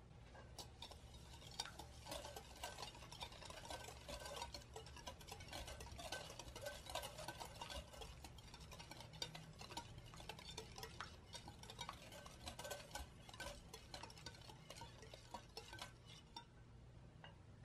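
Stainless steel wire whisk beating egg and granulated sugar in a glass bowl, the wires ticking and clinking against the glass in quick, irregular strokes. The whisking stops near the end.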